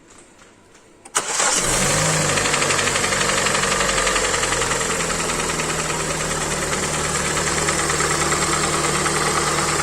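Hyundai i40 engine cranking and starting about a second in, the revs flaring briefly then settling to a steady idle, with a distinct piston knock: the cylinder walls are badly scored.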